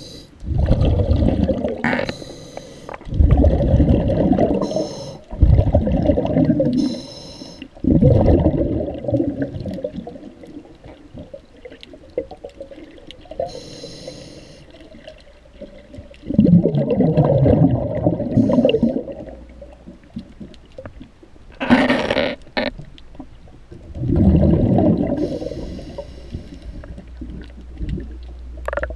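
Underwater: a scuba diver's exhaled bubbles rumbling and gurgling past the microphone in bursts of two to three seconds, six times, with a sharp knock a little after the middle.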